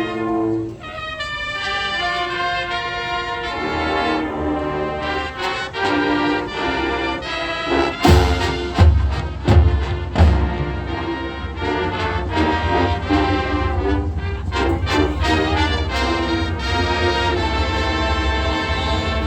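High school marching band brass playing the national anthem in slow, held chords. Bass drum and cymbal strikes come in about eight seconds in, with several heavy hits over the next couple of seconds.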